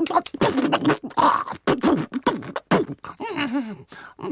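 Pingu's gibberish penguin-language voice, chopped into short stuttering fragments by abrupt edits that start and stop it every fraction of a second.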